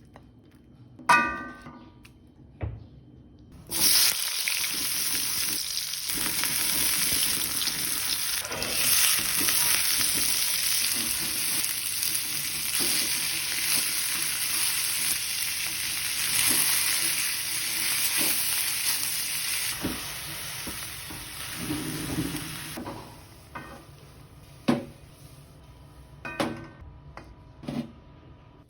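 Food sizzling in hot oil in a pan, a loud steady hiss that starts suddenly about four seconds in and cuts off abruptly some nineteen seconds later. A metallic clank of a utensil comes just before, and a few knocks of utensils on the pan follow.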